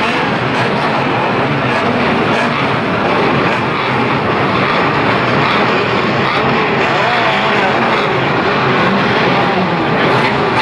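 Unlimited banger race car engines running on the start grid, heard from inside the stripped cabin of one of them: a loud, steady, dense engine noise with some wavering pitch as revs change.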